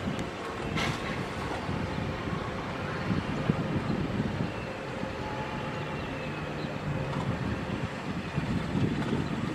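Cement mixer truck's diesel engine running low and steady as the truck backs slowly, with one sharp click about a second in.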